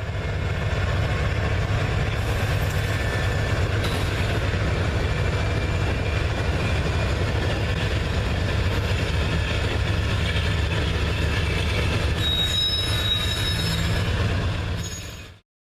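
Dubbed-in sound effect of a full-size train rolling by: a steady heavy rumble with a high wheel squeal about twelve seconds in. It cuts off suddenly near the end.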